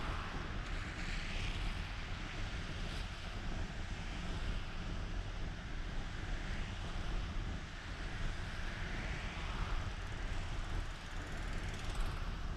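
A car driving on a wet road, heard from inside the cabin: a steady low road rumble with tyre hiss that swells and fades a few times.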